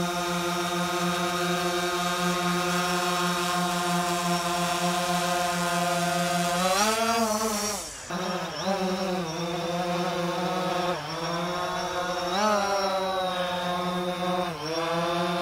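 DJI Phantom 4 Pro quadcopter hovering, its motors and propellers making a steady multi-tone whine. The pitch swells up and falls back about halfway through, then dips briefly three or four times as the motors change speed.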